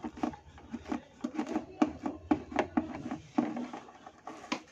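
A plastic cable connector and ribbon cable being pulled through a hole in a plastic chassis, making irregular small clicks and knocks.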